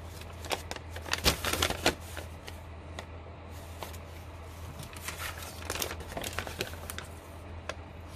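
Sheets of dried, eco-dyed paper rustling and crackling as they are handled and turned over. The sharp crackles come in two clusters, one about a second in and another around five to seven seconds in, over a low steady hum.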